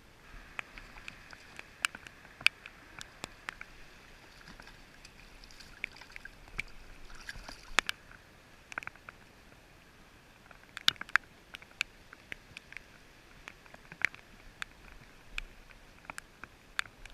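Shallow water sloshing and lapping, with many short, sharp clicks and ticks at irregular intervals, as a hooked sea-run cutthroat is played in.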